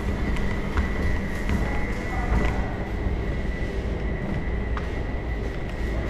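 Steady background hum of a mall concourse: a low rumble with a constant high-pitched whine running through it, and a few faint clicks.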